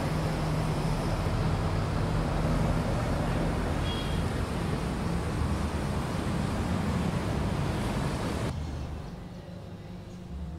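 A loud, steady rumbling noise on a film soundtrack, like heavy traffic or machinery, that cuts off suddenly about eight and a half seconds in, leaving a much quieter low hum.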